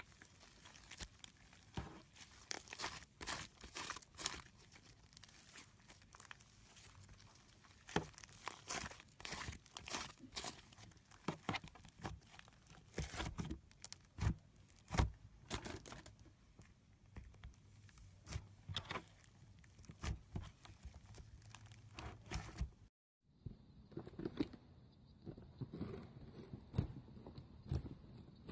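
Slime being squeezed and stretched by hand, making irregular sticky crackles and pops. A short silent break comes about three-quarters of the way through, then the crackling resumes with a slightly different texture.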